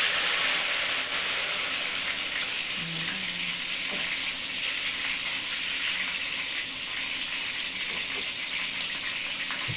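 Pot of sautéed squash and onions hissing steadily on a hot stove just after hot water has been poured in, stirred with a wooden spoon. The hiss is loudest in the first second, then eases slightly.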